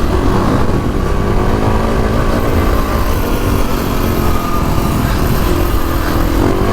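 Kawasaki KX450X's single-cylinder four-stroke engine running as the dirt bike is ridden along, its note holding fairly steady.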